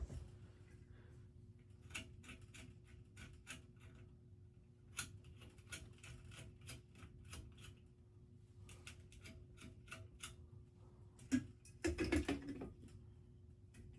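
Irregular light clicks and taps of small parts being handled while a bulb and glass globe are fitted to a ceiling fan's light kit, with a louder clatter about twelve seconds in. A faint steady hum lies underneath.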